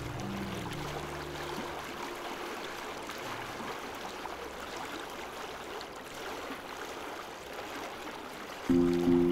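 Steady rush of flowing river water. Sustained low music notes fade out about two seconds in, and a loud sustained music chord comes in near the end.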